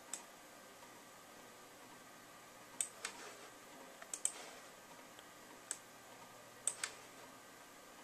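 Computer mouse clicks: about eight quiet, sharp clicks spread through, several in quick pairs like a button pressed and released, over faint room hiss.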